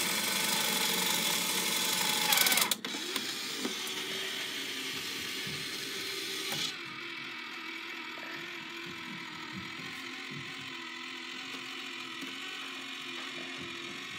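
Small electric motors of a toy mini claw machine running as the claw, holding a ball, is driven across the cabinet. Mechanical whirring, loudest for about the first three seconds, then quieter and steadier.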